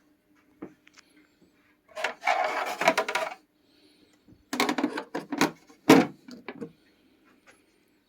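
Handling noises: a scraping rub lasting about a second and a half, then a quick run of knocks and clicks of hard parts being set together.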